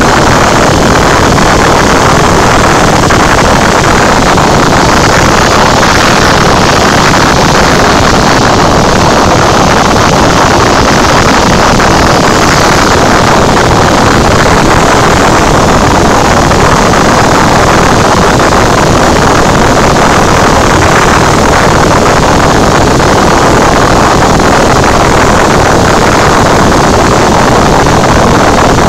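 Cessna 172 engine and propeller in flight, heard inside the cabin as a loud, steady drone blended with airflow noise.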